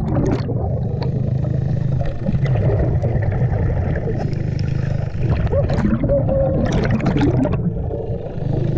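Underwater sound of scuba diving: a diver's regulator breathing, with bursts of exhaled bubbles near the start and twice more about two-thirds of the way through, over a steady low hum.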